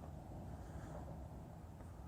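Faint, steady low rumble of outdoor background noise, with no distinct event.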